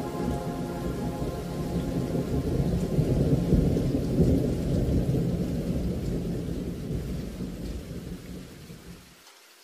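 Rain with a long, low rumble of rolling thunder that swells a few seconds in, then fades away and stops shortly before the end.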